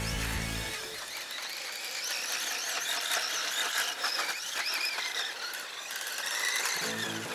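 Yokomo Dog Fighter YZ-834B RC buggy running, its electric motor and gears whining and rising and falling in pitch as the throttle changes. Background music plays for about the first second and comes back near the end.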